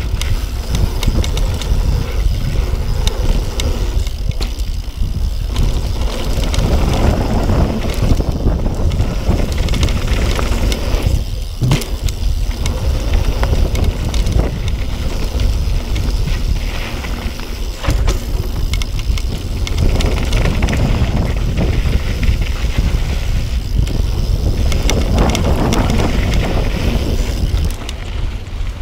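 Yeti SB6 mountain bike descending a dirt jump trail at speed: tyres rolling over dirt and gravel, with a steady low rumble of wind on the microphone and frequent small clicks and rattles from the bike over the bumps.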